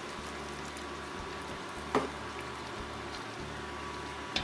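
A pan of chicken, tomatoes and canned white beans in their brine, bubbling and sizzling steadily on the stove. A sharp tap about two seconds in and another just before the end.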